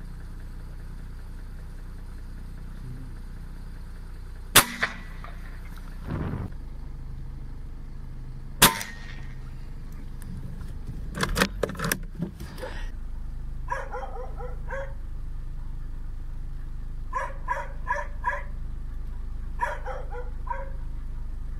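Two rifle shots about four seconds apart, then a few smaller clicks, then a dog barking in short bursts of several barks each.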